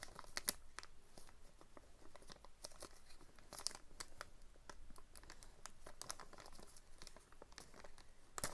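Packaging crinkling and crackling as it is handled, in irregular sharp little crackles, while a staple is worked out of the stapled packet.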